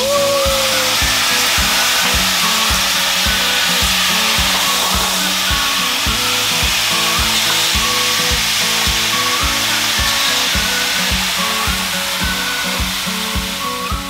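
Water ladled onto the hot stones of a tent-sauna stove, hissing and sizzling as it flashes to steam: a loud, steady hiss. Background music with a steady beat plays underneath.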